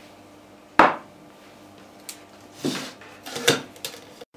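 A single sharp knock about a second in, then a few lighter clatters of hard plastic and metal as an electric hand mixer's wire beaters are set into a plastic mixing jug of eggs and sugar; the mixer is not yet running.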